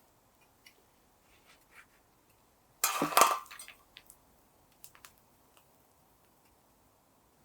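A short, loud clatter of hard objects knocking together about three seconds in, with scattered light clicks and ticks around it.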